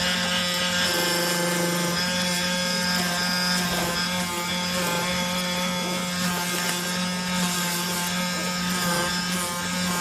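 CNC oscillating knife cutter running on corrugated cardboard: a steady low buzz from the vibrating knife, with a mix of higher steady machine tones over it.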